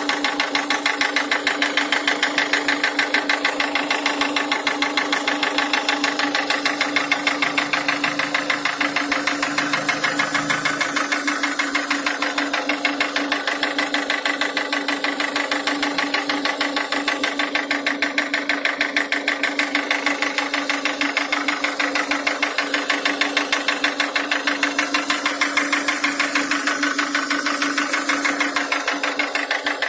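Nissan QG18DE 1.8-litre four-cylinder petrol engine running at idle with a fast, even, rhythmic knock, which the owner locates around the fourth cylinder.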